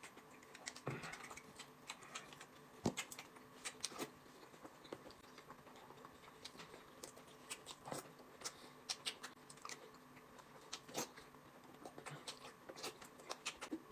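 Faint eating sounds: scattered small clicks and smacks of a man chewing dumplings, with chopsticks picking at the plate.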